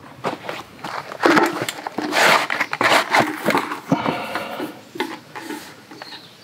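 Handling noise: a quick run of knocks, clicks and rustles as firewood and kindling are handled in a metal fire pit, busiest and loudest in the middle.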